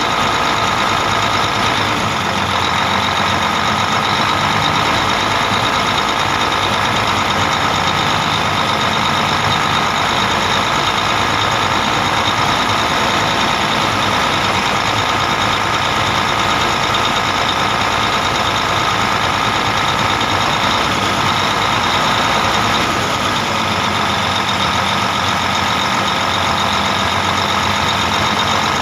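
Mercedes-Benz OM 460 LA inline-six turbo diesel engine running steadily at a constant speed.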